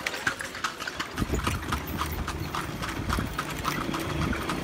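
Horse's hooves clip-clopping in an even trot on a paved street, pulling a kalesa (horse-drawn carriage). A low steady rumble joins about a second in.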